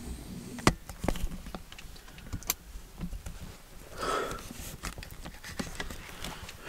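Handling noise from a camera and chest-pack gear being moved around inside a ground blind: a string of sharp separate clicks and knocks, with a short rustling, breathy stretch about four seconds in.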